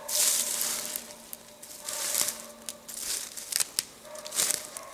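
Footsteps crunching through dry fallen leaves and twigs, about one step a second, with a few sharp snaps of small sticks underfoot.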